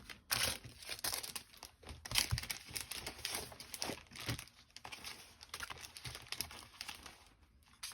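Paper and plastic packaging from a card-making kit rustling and crinkling as they are handled, in irregular bursts that thin out near the end.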